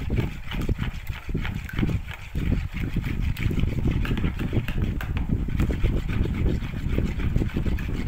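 Metal spoon stirring a thick yellow liquid in a plastic bowl: quick, repeated clinks and scrapes of the spoon against the bowl, over a steady low rumble.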